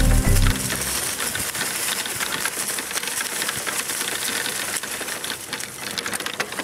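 Background music ends about a second in, giving way to a steady rattling and crunching full of quick clicks: a dog cart pulled by three dogs rolling over a dry, leaf-strewn dirt trail.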